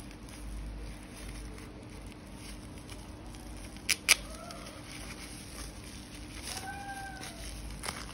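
Bubble wrap rustling and crinkling as it is pulled off a stainless-steel wristwatch, with two sharp snaps close together about four seconds in, the loudest sounds.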